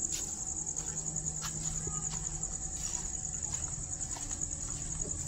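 Crickets chirping in a steady, fast-pulsing high trill, with a few faint knocks.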